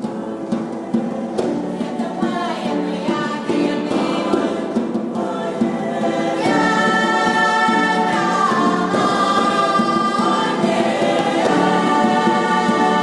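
Choir singing in harmony, holding chords with some sliding notes; the singing swells louder about six and a half seconds in.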